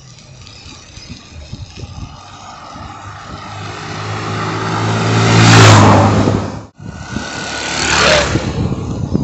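Road traffic passing close by: a vehicle's engine and tyre noise swells to a loud peak about six seconds in and breaks off abruptly, then a second vehicle passes, loudest about eight seconds in.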